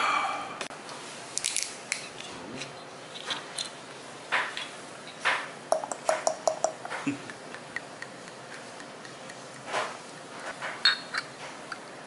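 Scattered clicks, taps and light clinks of tableware and a green glass soju bottle being handled at a table, with a quick run of ticks about six seconds in and a few glassy clinks near the end.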